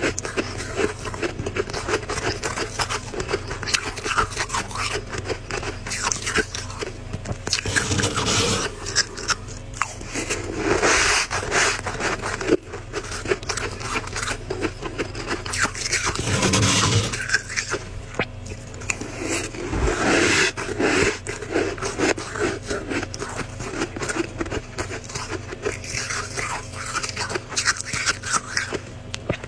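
Powdery freezer frost being scraped and crunched: a dense, continuous crackling scrape of ice crystals, with louder swells every few seconds.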